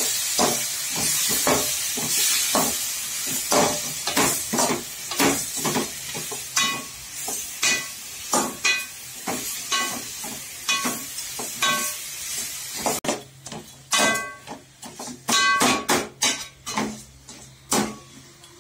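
Quail pieces sizzling as they fry in oil in a metal kadai, while a metal ladle stirs and scrapes them, knocking against the pan with short ringing clinks. About thirteen seconds in the sizzle drops away and the ladle knocks come sharper and further apart.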